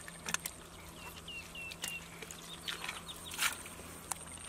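Hands splashing and slapping in shallow muddy water, a few sharp wet hits. About a second in, a bird gives four short chirps in quick succession.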